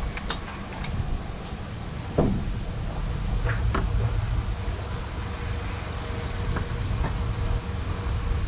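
Sparse light clicks and scrapes of a hand tool as a hose clamp is tightened on a heater hose in the engine bay, over a steady low rumble.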